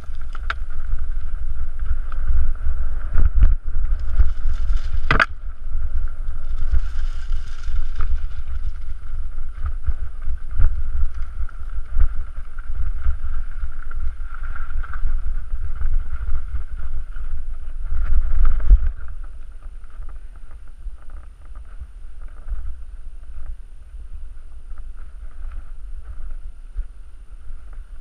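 Mountain bike descending a rough, rocky forest singletrack, heard from a camera on the rider: heavy wind rumble on the microphone over a steady high buzz, with rattles and sharp knocks from the bike over the ground. It gets quieter about two-thirds of the way through.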